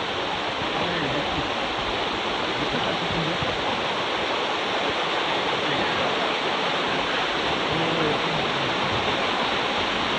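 Mountain valley stream rushing steadily over rocks, a constant full water noise.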